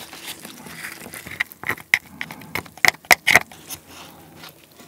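King crab claw meat being pulled from the shell and handled by gloved hands over a stainless steel tray, with a quick run of sharp clicks and taps through the middle, the loudest a little past halfway.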